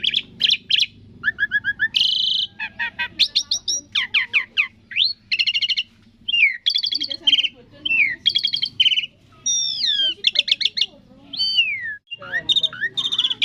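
Asian pied starling (jalak suren) singing a fast, varied song of clear whistles, rising and falling glides and rapid chattering notes, with brief pauses about six and twelve seconds in.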